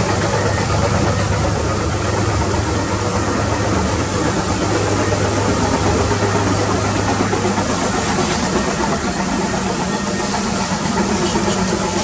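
Water spray hissing onto a car's engine bay over a steady low motor hum.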